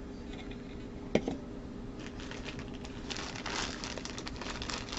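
A couple of sharp knocks from a Funko Soda can being handled, then a long run of plastic packaging crinkling as it is torn open to get at the vinyl figure inside.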